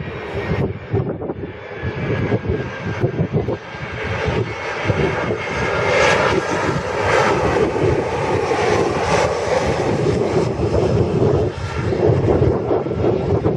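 Jet airliner's engines roaring as it passes. The noise swells about four seconds in and stays loud, with a faint whine over it.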